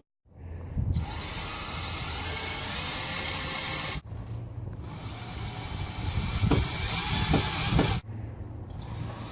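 Power drill driving wood screws into a doorbell mounting plate. It runs in two spells of about three seconds each, and each stops abruptly.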